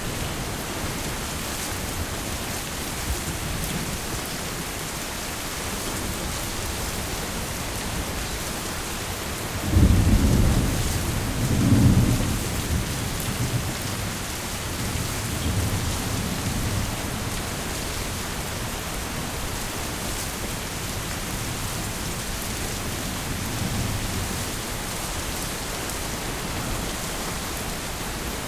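Heavy rain falling steadily in a forest, with a loud clap of thunder about a third of the way in that rumbles twice and fades over several seconds.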